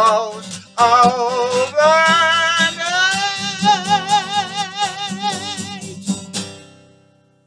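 Man singing with a strummed acoustic guitar, ending on a long held note with vibrato. A last strum comes near the end, rings out and fades away.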